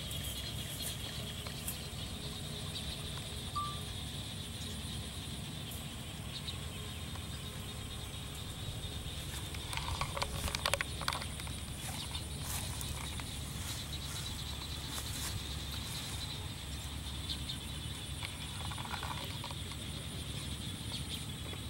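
Steady rural ambience: a constant high chirring of insects over a low rumble. About ten seconds in, a few light clicks and rattles come from the wire grille of an electric fan guard being handled.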